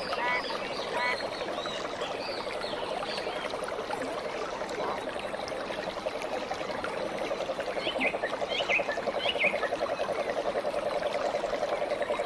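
Animal calls: a steady, rapidly pulsing trill runs throughout, with a cluster of short, higher chirping calls about two-thirds of the way through.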